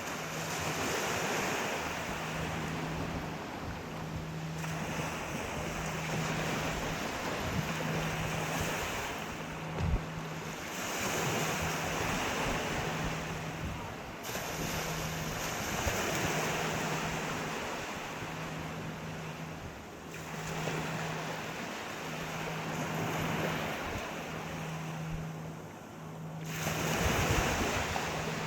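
Sea waves breaking and washing ashore, the surf swelling and fading every few seconds. Underneath, a low hum pulses on and off about once a second, and a single sharp knock comes about ten seconds in.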